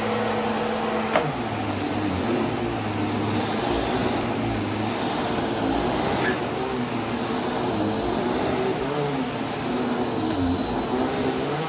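Vacuum cleaner running with a steady high motor whine over airflow noise, its lower hum wavering in pitch as it works. There is a sharp click about a second in.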